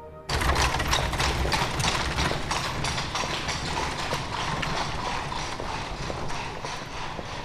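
Horse hooves clip-clopping on a paved street amid steady street bustle, cutting in suddenly just after the start.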